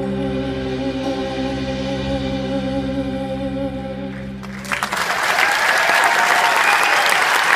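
The last held chord of the song, a sustained sung note over the band, which stops about four and a half seconds in. Audience applause then breaks out and grows louder.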